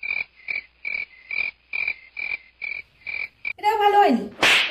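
A croaking sound effect: short, evenly spaced croaks, about three a second, for roughly three and a half seconds, with dead silence between them. Near the end it gives way to a voice-like sound and a brief burst of noise.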